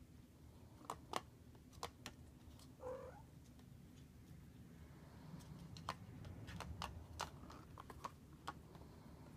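Light plastic clicks and taps from a kitten batting at a circular plastic track toy and the ball rolling in it. A few come in the first two seconds and more, closer together, in the second half. There is one brief high squeak about three seconds in.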